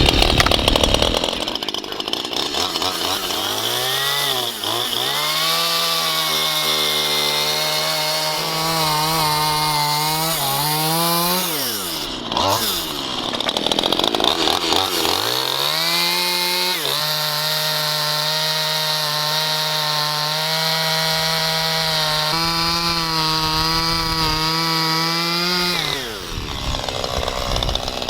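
Stihl two-stroke chainsaw cutting through an aspen poplar log to an 8-foot length. The engine revs up about four seconds in, drops off briefly around halfway and comes back up, then holds a steady pitch until it falls away near the end.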